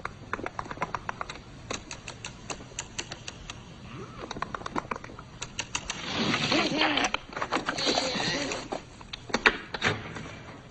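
Quick, irregular clicking like fast typing on a keyboard. About six seconds in it gives way to a louder warbling, pitched sound for about three seconds, then the clicking comes back.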